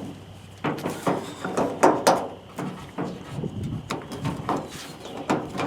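Irregular clicks, knocks and scrapes of a thin pry tool working a plastic piece out of a pickup tailgate's latch assembly, metal against plastic and painted sheet metal. The sharpest knock comes about two seconds in.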